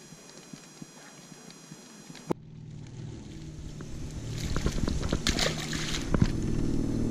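Hooked bass thrashing and splashing at the water's surface beside the boat, building up over the second half, over a steady low hum.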